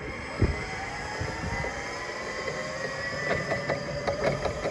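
Hangcha CPDS16J 48-volt three-wheel electric forklift driving across brick paving: its electric drive whines steadily, with a thump shortly after the start and a run of rattling clicks over the second half.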